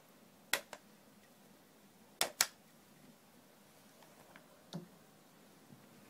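Sharp plastic clicks from handling the Cup Noodle-shaped USB humidifier: a pair about half a second in, a louder pair just after two seconds, then a duller knock near the end.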